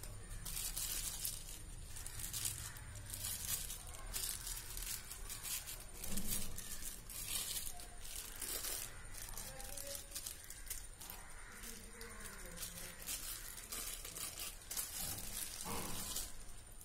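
A thin plastic sheet crinkling and rustling in irregular crackles as hands press and fold mashed banana dough around a filling ball.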